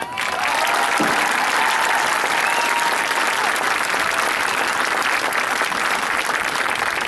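Stadium crowd applauding and cheering, with a few drawn-out cheers rising above the clapping in the first few seconds.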